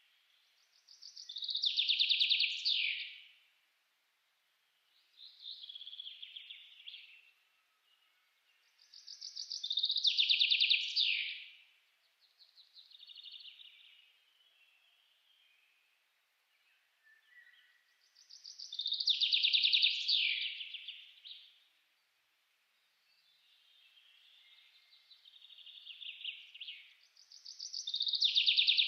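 A bird singing in repeated trilled phrases of about two seconds each, with louder phrases roughly every nine seconds and fainter phrases in between.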